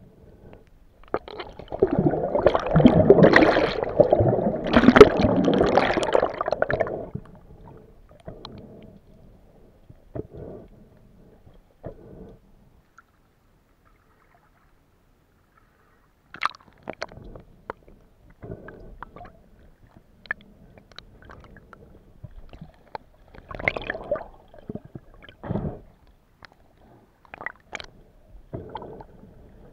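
Water heard through an underwater camera: a loud, muffled gurgling rush of water for about six seconds, then scattered small clicks and crackles.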